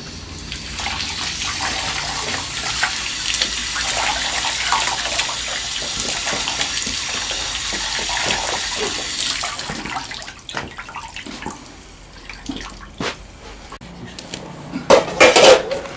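Water splashing and sloshing in a metal basin as a severed pig's head is washed in it, steady for about the first ten seconds. After that come quieter scattered handling sounds, and a short loud burst near the end.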